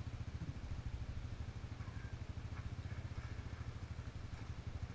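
An off-road vehicle's engine idling steadily with an even, low pulsing beat.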